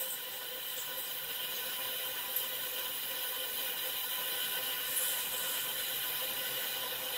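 JPT MOPA 100W fiber laser marking machine engraving an aluminum plate: a steady high hissing buzz with several held tones, with a few faint ticks.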